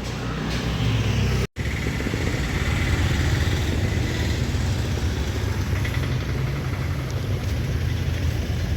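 A motor vehicle's engine running steadily as a low rumble, with road or wind noise above it. It cuts out for an instant about one and a half seconds in.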